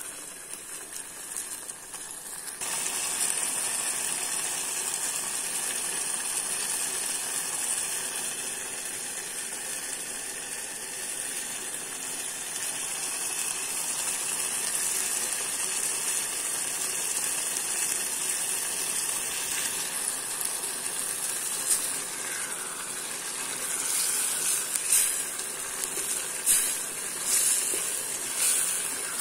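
Pigeon curry bubbling and sizzling in a stainless steel pot, a little water having just been added to the fried meat and masala to cook down. The steady hiss grows louder a couple of seconds in. Near the end a wooden spatula scrapes against the pot several times.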